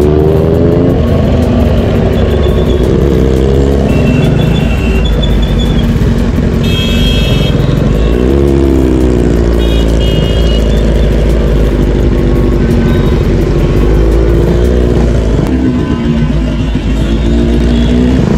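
Motorcycle engine running and revving in slow traffic, its pitch rising and falling three times. Vehicle horns honk several times in the first half.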